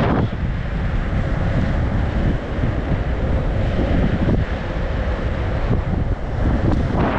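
Wind buffeting the microphone of a camera carried by an inline speed skater at race speed: a loud, steady rushing roar, heaviest in the low end.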